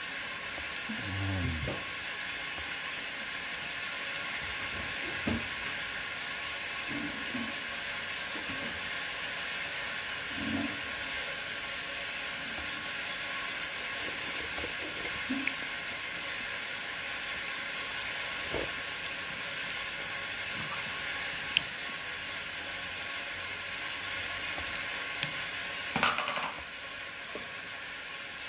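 Steady hiss, with a few soft low knocks and light clicks scattered through it.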